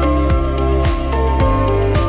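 Instrumental background music: sustained notes over a bass line, with a steady beat of about two strikes a second.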